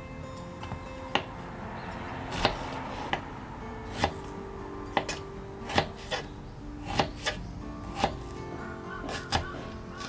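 A knife chopping vegetables on a cutting board, single cuts roughly once a second, over background music.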